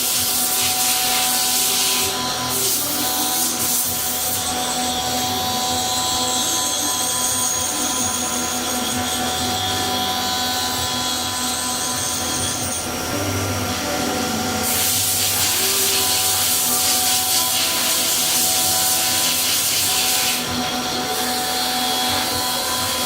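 CNC machine running: a steady motor whine with a high hissing cutting noise that starts and stops several times, and some faint gliding tones as the axes move.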